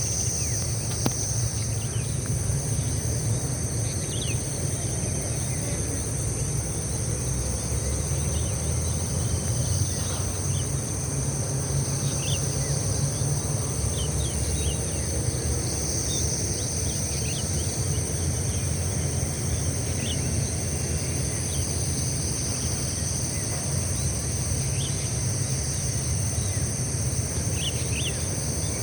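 A steady, high-pitched chorus of insects buzzing and trilling without a break, with many short bird chirps scattered through it, over a steady low rumble.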